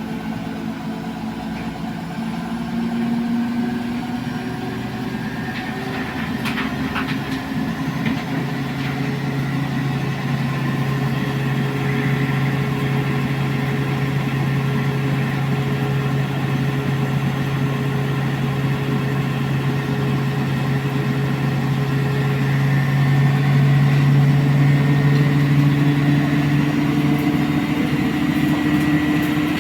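Electrolux CompassPRO WH6-27 commercial washer spinning its drum on a spin-only cycle: a steady motor hum and whine that grows louder as the spin builds, with the pitch stepping up about a quarter of the way in and a tone rising near the end. A few brief clicks come from the drum about a quarter of the way in.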